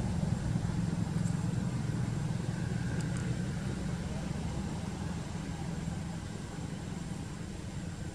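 Low, steady rumble of a vehicle engine, slowly fading away.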